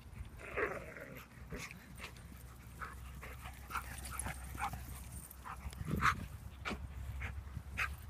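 A collie and a golden retriever playing together, with panting and short, scattered play noises.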